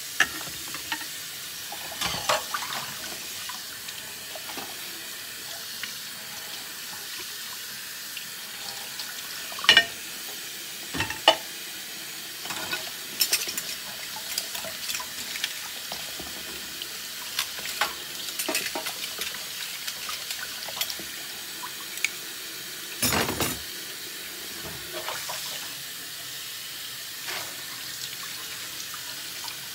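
Kitchen faucet running into a stainless steel sink while dishes are rinsed by hand under the stream, with scattered clinks and knocks of dishes and utensils against each other and the sink, a few of them sharper and louder.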